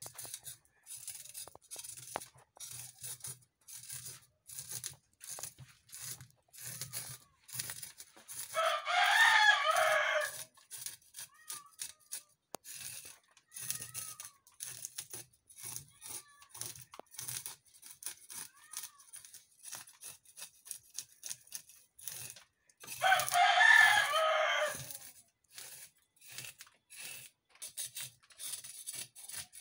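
Knife scraping the scales off a whole fish in many short, quick strokes on a wooden chopping block. A rooster crows twice over it, once about a third of the way in and again later, much louder than the scraping.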